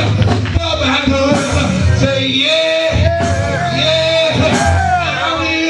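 A man singing gospel into a microphone over backing church music, holding long sustained notes.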